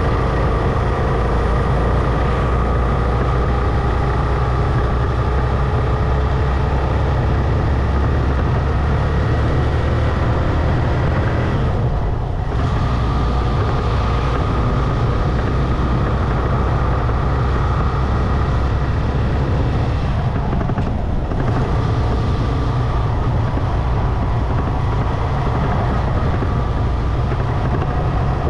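Motorcycle engine running at cruising speed, with heavy wind rumble on the microphone. The engine note drops briefly twice, as if the throttle is eased off, then picks up again.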